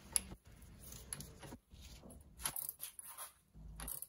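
Small metal tools and parts being handled on a workbench: a sharp metallic click right at the start, then a few softer clinks and handling noises.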